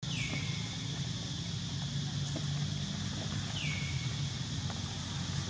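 Two short whistle-like animal calls, each falling in pitch and then holding briefly, about three and a half seconds apart, over a steady low hum.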